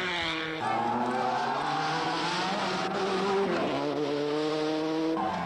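Rally car engine running hard at full throttle on a gravel stage, its note dropping and climbing as it changes gear.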